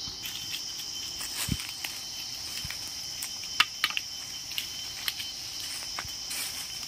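A steady, high-pitched drone of forest insects, with footsteps crunching and rustling through dry leaf litter in irregular clicks. A sharp snap comes about three and a half seconds in.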